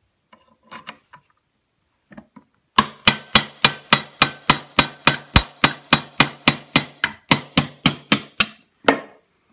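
Hammer striking a steel pin punch to drive the dust-cover pin out of a Vepr 12 shotgun. A few light taps, then a steady run of about twenty sharp, ringing blows, roughly three and a half a second, and one last blow near the end.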